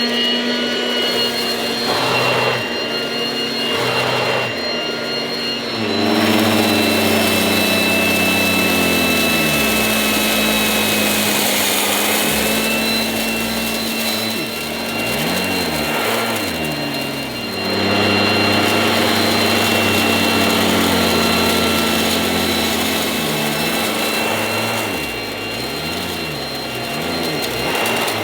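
1980s Goblin Roto mains-powered handheld vacuum cleaner with a revolving brush, running loud with a high-pitched whine over a low hum. It gets louder twice, and its pitch swings up and down repeatedly as the load changes.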